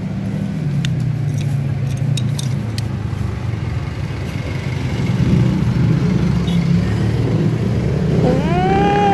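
Steady low rumble of a vehicle engine running nearby, with a few light clicks in the first three seconds. About eight seconds in, a pitched sound rises in pitch and then holds.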